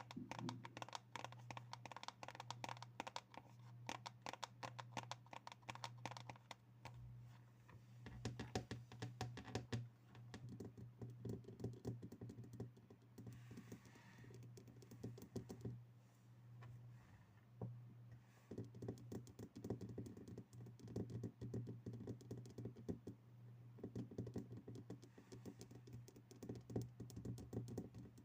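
Rapid tapping on objects, a quick, uneven run of light clicks and knocks. A low steady hum runs underneath.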